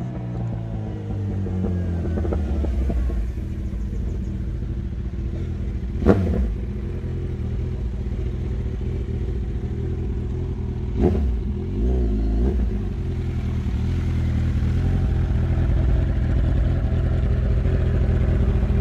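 Kawasaki Z1000 inline-four running through a Jeskap 4-2-1 full exhaust. The revs fall back to a steady idle at the start. Two sharp throttle blips come about six seconds in and again about five seconds later, followed by a shorter blip.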